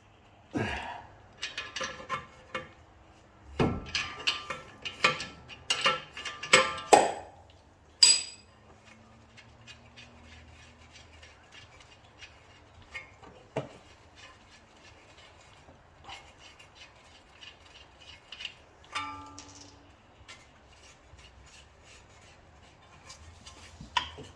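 Metal hand tools clanking and clinking against the car's suspension hardware during bolt removal: a quick run of ringing metallic knocks for the first several seconds, ending in one sharp clank, then only occasional single clinks.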